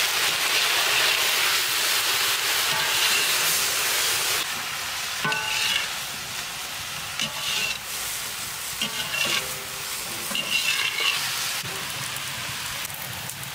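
Capsicum sizzling as it fries in hot oil in a pan: loud for about the first four seconds, then quieter. Stirring scrapes against the pan come every second or two.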